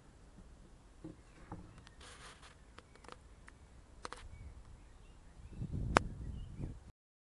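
Camera handling noise: scattered clicks and rustles, then a low rumble with one sharp knock about six seconds in, before the sound cuts out abruptly.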